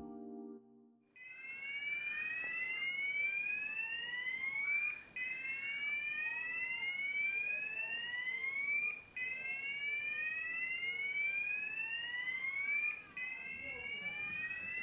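Building fire alarm sounding an evacuation signal: a rising whooping sweep that repeats about every four seconds with a brief gap, starting about a second in.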